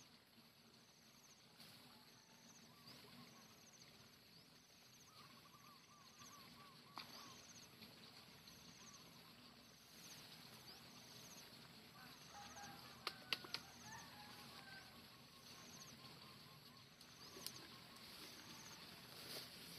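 Near silence with faint outdoor ambience: a high chirp repeats steadily a little more than once a second, with faint bird calls. A few sharp clicks come about two-thirds of the way in and are the loudest moment.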